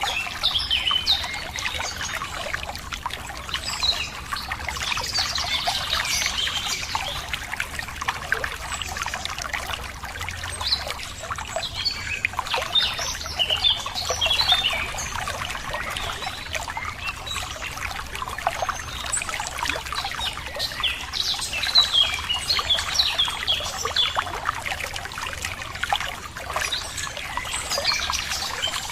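Running water trickling and splashing steadily, with small birds chirping in short quick phrases that come in clusters every several seconds.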